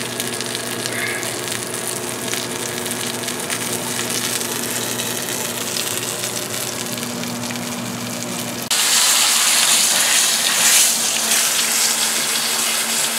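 Beef roast searing in hot fat in a cast iron skillet: steady sizzling, which turns abruptly louder and brighter about nine seconds in.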